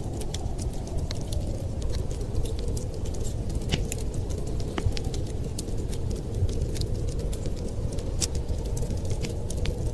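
Wood fire crackling: many small sharp pops and snaps scattered irregularly over a steady low rumble.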